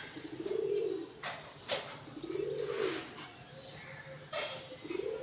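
Feeding flock of domestic pigeons cooing: three low rising-and-falling coos about two seconds apart, with a few short sharp sounds between them.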